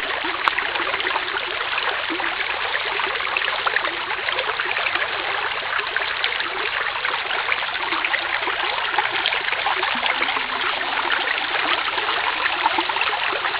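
Small woodland brook running over rocks in a shallow cascade: a steady rushing of water.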